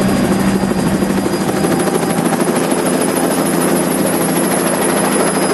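Helicopter rotor and engine running loud and steady, with a low hum that fades out about a second in, near the end of the flight as it comes in to land.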